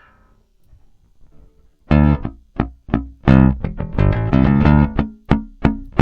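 Electric P bass with a 916 Neo MFD pickup, recorded direct through a DI, playing a riff of short plucked notes separated by muted gaps. The riff starts about two seconds in.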